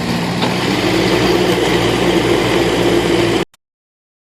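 Backhoe engine running steadily under work, with a constant low hum, cutting off abruptly to silence about three and a half seconds in.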